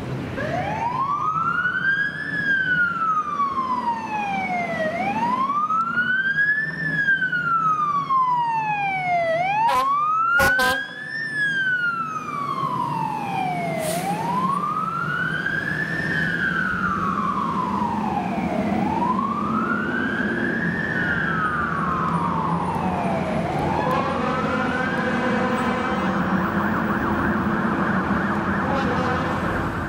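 Rosenbauer fire engine's siren wailing, rising and falling in slow cycles about every four and a half seconds over the truck's engine running, as the engine responds to a call. In the last few seconds the siren switches to a steadier, choppier high tone.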